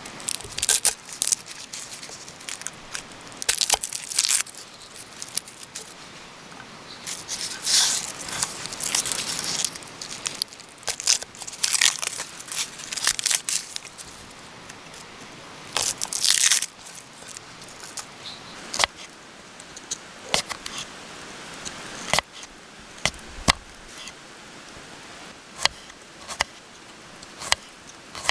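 Irregular crinkling and tearing noises in short bursts, then scattered sharp clicks and snaps through the later half.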